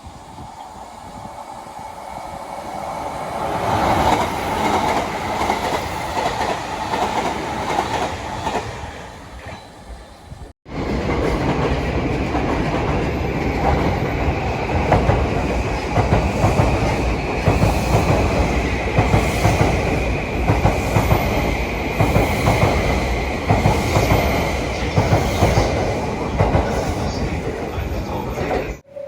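Train wheels clattering over rail joints in two recordings. In the first, a train passes, getting louder and then fading. After a cut, another train runs steadily, with closely repeated joint clicks over a steady high tone.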